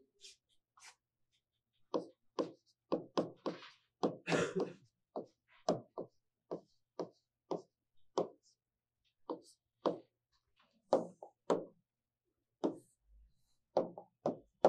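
Writing on a board: a string of short knocks and taps, about two a second, as the pen strikes the board's surface with each letter, with a brief scratchy stroke about four seconds in.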